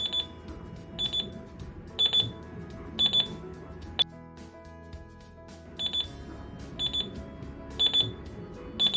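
Digital alarm clock's alarm beeping in short bursts of quick high beeps, about one burst a second, over background music. A sharp click comes about four seconds in, and the beeping pauses for about two seconds before starting again.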